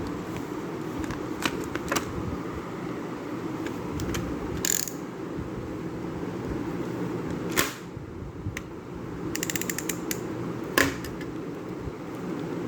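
Metal and plastic parts being handled, with scattered clicks and knocks over a steady background hum, and a quick run of ratchet-like clicks about nine and a half seconds in.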